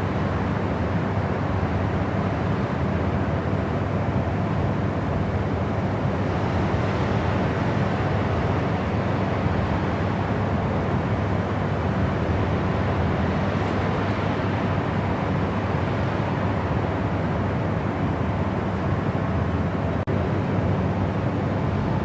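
Steady white noise: an even, unbroken rushing hiss, heavier in the low end than the high, with faint swells in the upper hiss now and then.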